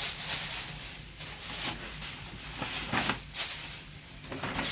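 Paper rustling and crinkling in irregular bursts as a birthday present is unwrapped.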